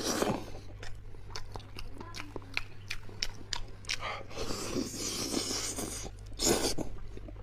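Close-up mouth sounds of someone gnawing and chewing soft, gelatinous braised beef hoof tendon: wet smacks and clicks of lips and teeth, with a couple of loud breaths or sniffs.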